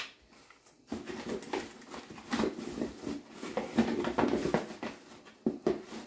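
Packaging being handled by hand while a vacuum accessory is unwrapped: irregular rustling and crinkling, with a couple of sharper knocks near the end.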